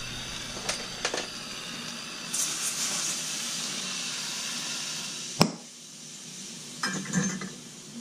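Hand-held gas soldering torch hissing as it heats silver beads for soldering, louder from about two seconds in, with a few light clinks. A sharp metallic clink comes about five seconds in, after which the hiss drops away.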